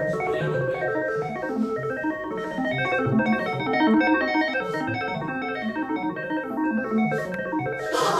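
Music playing: a busy piece of many quickly changing notes, steady in level.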